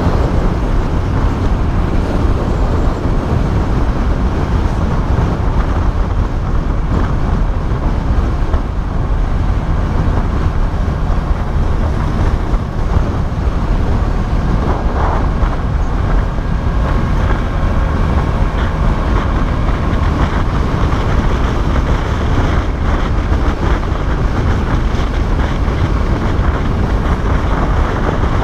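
Motorcycle riding at expressway speed: wind rushing over the camera microphone over steady engine and road noise, unbroken throughout.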